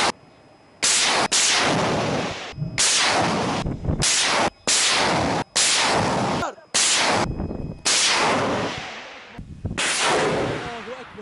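A towed multiple rocket launcher firing rockets one after another: about eight loud, sudden launch blasts, each a rushing whoosh that fades over a second or so, several cut off abruptly.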